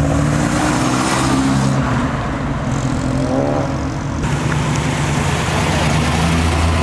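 Cars driving past at low speed and pulling away, their engines rising in pitch as they accelerate. A deeper, low engine rumble builds near the end as the next car comes by close.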